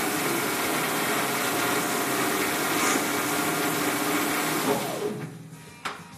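Small benchtop metal lathe running with a steady whir of motor and spinning three-jaw chuck. It is switched off about five seconds in and winds down, the pitch falling as it slows. A sharp click follows near the end.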